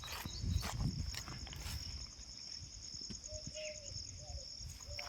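Insects trilling steadily in a high, rapid, even pulse, with low thumps and rumble in the first two seconds.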